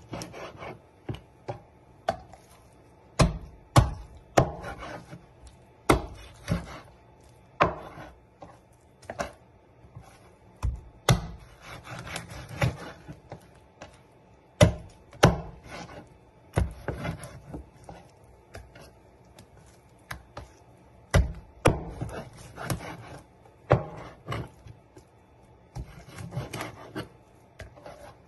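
Meat cleaver chopping raw chicken on a plastic cutting board. The chops are sharp and irregular, often two or three close together, with quieter scraping and handling of the meat between them.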